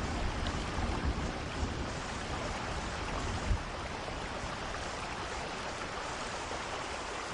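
Steady rainfall, an even hiss of rain with no music, and one brief low thump about three and a half seconds in.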